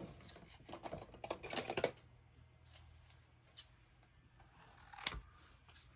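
Scrapbook papers and small embellishments handled on a work surface: quick rustles and clicks for the first two seconds, then scattered light taps, the loudest a sharp tap about five seconds in.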